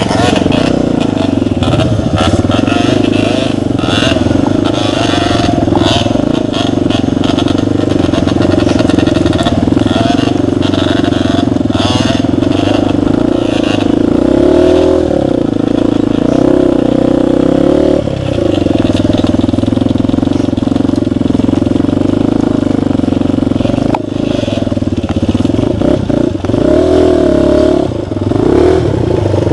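Small single-cylinder four-stroke engine of a Romet CRS 125 enduro bike running hard off-road, its revs rising and falling with the throttle, dropping briefly a few times. Knocks and rattles from the bike jolting over rough ground.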